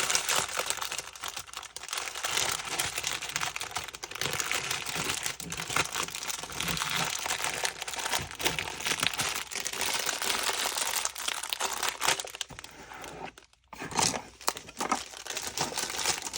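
Plastic packaging bags crinkling as they are handled and opened, a dense run of crackles with a short break about thirteen seconds in.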